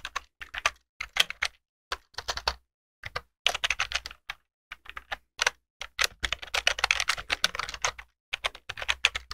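Typing on a computer keyboard: quick runs of keystrokes with short pauses between them, the longest run near the middle.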